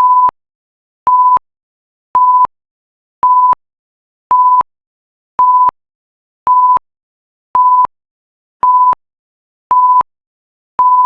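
Electronic timer alarm: a single steady high beep about a third of a second long, repeated roughly once a second, eleven times, signalling that the countdown has ended.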